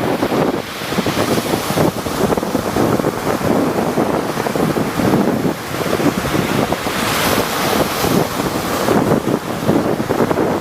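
Rough sea surf breaking and washing continuously, with wind buffeting the microphone. A louder hissing wash of surf swells about seven seconds in.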